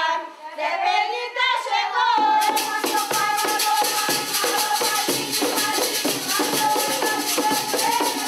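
Women singing an Afro-Brazilian terreiro ritual song; about two seconds in, shaken percussion such as rattles comes in, playing a fast, steady beat under the voices.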